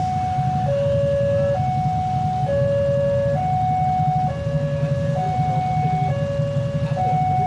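Railway level-crossing warning alarm sounding its two-tone electronic signal, a higher and a lower tone alternating about every second, which means a train is approaching. Under it runs a steady low rumble.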